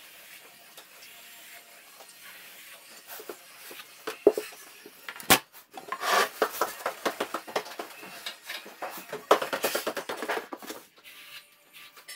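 Plastering trowel scraping and rubbing over fresh plaster on a wall in two runs of quick strokes, after a couple of sharp knocks near the middle.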